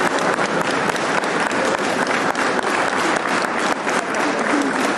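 Congregation applauding: a dense, steady round of many hands clapping.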